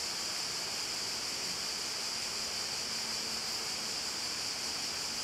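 Steady, even hiss of background noise, strongest in the upper range, with no distinct event.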